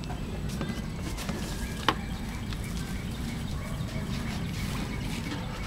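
Outdoor background: a steady low rumble with faint high chirps and a single sharp click about two seconds in.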